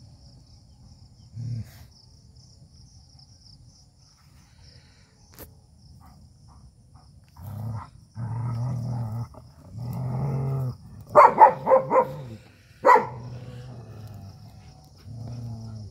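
Dogs squabbling: long low growls from about halfway in, then a quick run of four loud barks and one more bark a second later, with a last low growl near the end. Crickets chirp steadily underneath.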